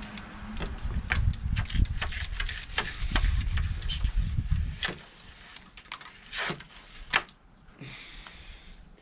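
A cleaning rod with a soapy-water-soaked sponge pumped up and down a Mauser rifle's bore, its muzzle standing in a bucket of soapy water, drawing water through the barrel to flush out corrosive primer salts: irregular wet squishes and rod clicks, busier in the first half and sparser after.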